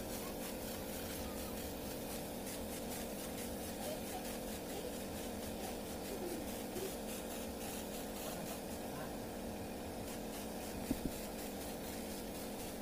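Air compressor running steadily for a paint spray gun: a constant hum and hiss with a fast, even pulsing. Two small clicks near the end.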